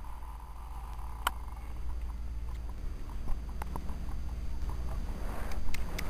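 Horse trotting through snow under a rider: soft, scattered hoofbeat clicks that grow denser and louder near the end, over a steady low rumble.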